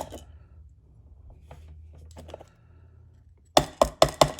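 Small metal clicks and taps from handling the pins and parts of a dismantled Medeco lock: a few faint ticks, then a quick run of about five sharp clicks near the end.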